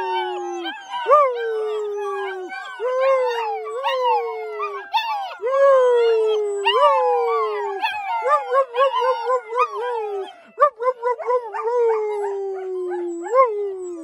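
A litter of black German Shepherd puppies howling together, several voices overlapping at different pitches. Long howls slide downward, and about halfway through a run of short, quick yipping notes comes in before the long howls return.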